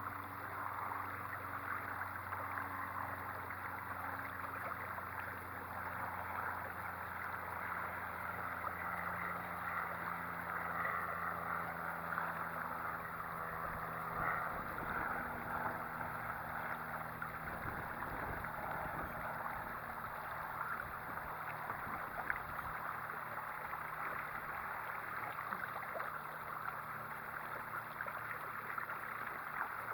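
A 30 lb thrust electric trolling motor pushes a small kayak along, giving a steady low hum under water hissing and splashing past the hull. About a third of the way in the hum changes and low rumbling noise takes its place in part.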